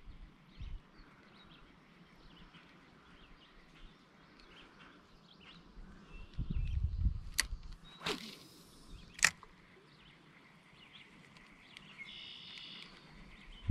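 Spinning rod and reel handled during a cast: a sharp click, a whooshing swish, then a louder sharp snap about two seconds after the click, as of the reel's bail opening, the line going out and the bail closing.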